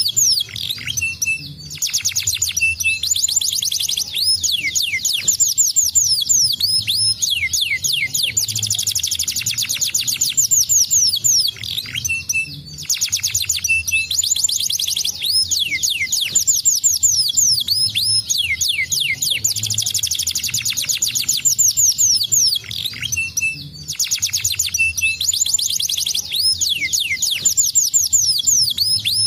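Domestic canary singing a long song of very fast trills and rapidly repeated high notes and glides, broken by a few short pauses.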